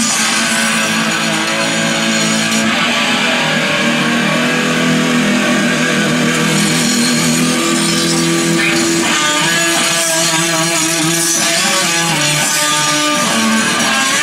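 Music led by guitar, with steady held notes that change pitch every few seconds.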